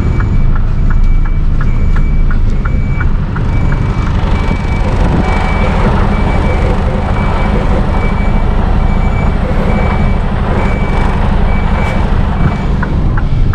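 Mercedes-Benz Actros truck reversing, its reversing alarm beeping at an even pace over the steady running of the diesel engine. A light, quick ticking sounds during the first few seconds.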